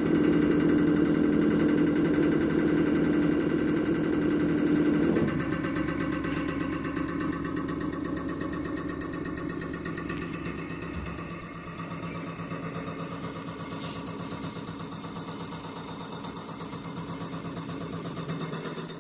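EPS205 common rail injector test bench running a test: a steady machine hum from the bench's drive and high-pressure pump, with the injector firing in a fast, even ticking. About five seconds in the sound drops in level and changes tone.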